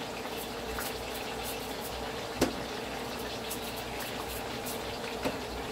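Chicken back pieces frying in a pan of oil: a steady sizzle with fine crackling, and two louder pops, about two and a half seconds in and near the end.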